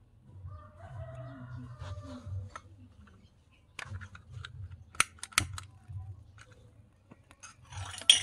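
A chicken calls from about half a second in, for about two seconds. A few sharp clicks and taps follow, and near the end a short hissing burst, the loudest sound, as the miniature stove's burner lights.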